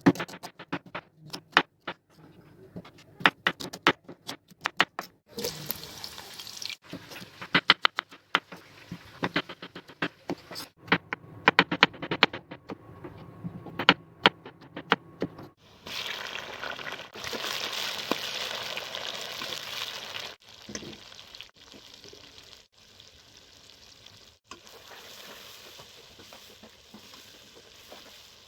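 Kitchen cooking sounds: a long run of sharp taps and clicks of utensils or a knife, then a steady hiss for about four seconds, fading to a fainter hiss with a few knocks.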